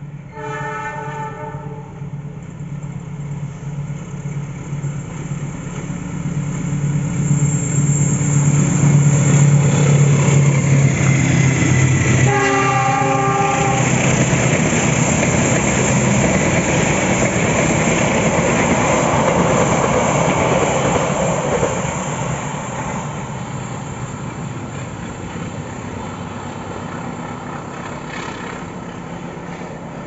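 Passenger train hauled by a diesel locomotive approaching and passing close by. The locomotive sounds its horn just after the start and again about twelve seconds in. The engine hum builds as it nears, then the coaches go past with loud wheel-on-rail noise that fades after about twenty-two seconds.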